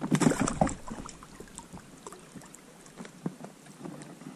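Knocks and water sounds from an inflatable PVC boat on a river: a loud cluster of knocks and splashes in the first second, then small scattered clicks over quiet water noise.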